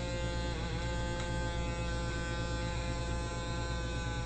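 Small motor spinning the launch wheel of a homemade pitching-machine-style airsoft BB launcher, running with a steady whine. Its pitch rises a little and settles about half a second in.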